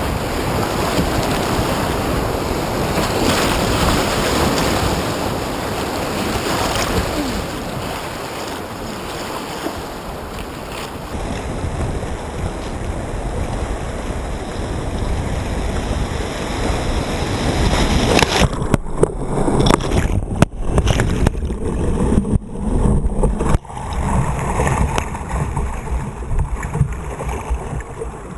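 Steady rushing noise like wind or moving water. In the last ten seconds it turns gusty and uneven, with several knocks.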